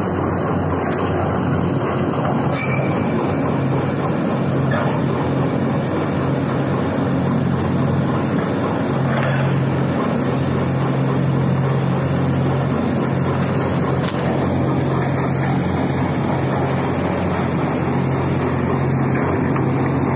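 Hydraulic excavator's diesel engine running steadily at close range: a loud, even drone, with a few faint knocks.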